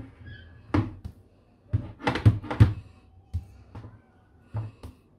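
A run of about eight sharp knocks and thuds at uneven intervals, the loudest few bunched together a little after two seconds in.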